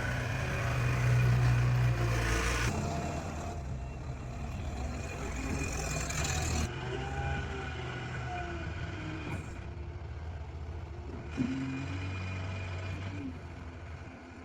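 Skid steer loader engine running steadily, its sound changing abruptly a few times.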